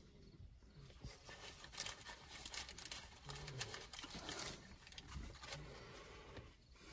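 Faint sounds of eating a cheeseburger: chewing and mouth clicks, mixed with light crinkling of its paper wrapper.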